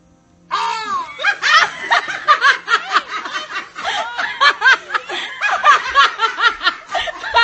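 Loud, high-pitched laughter that breaks out about half a second in and carries on in quick, shrieking fits.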